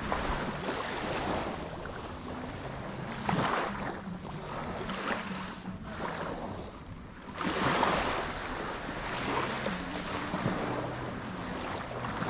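Wind on the microphone and small waves washing over shallow water, swelling a few times, with a faint low hum underneath.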